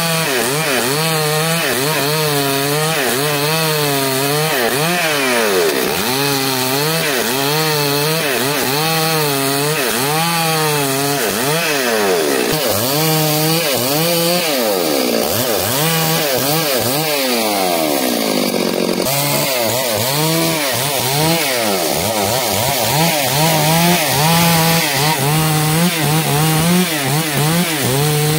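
STIHL MS 382 two-stroke chainsaw ripping a log lengthwise under load, the engine pitch rising and falling about once a second as the cut is worked. About halfway through, the pitch sinks slowly for a few seconds, then climbs back up.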